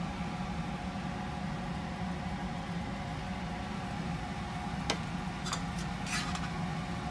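Steady mechanical hum of kitchen equipment, with a few light clicks from the metal loaf tin being handled and a short crackle in the second half.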